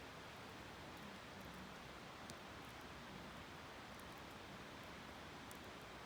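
Steady, faint rush of a flowing river, with a few faint clicks.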